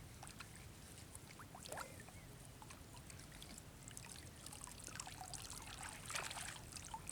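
Faint trickling and light splashing of water, busiest about six seconds in.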